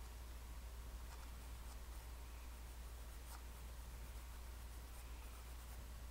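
Graphite pencil scratching lightly on sketchbook paper: a handful of faint, short drawing strokes over a steady low hum.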